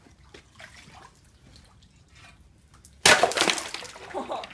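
A thin sheet of ice over shallow water gives a few faint clicks and crackles. About three seconds in it breaks with a sudden loud crash of ice shattering and splashing into the water, which dies away over about a second.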